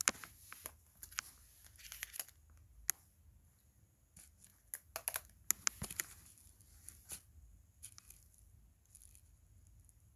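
Handling noise from mobile phones: scattered clicks, taps and short rustles as phones are picked up and moved about and a flip phone is opened, with a cluster of clicks near the middle.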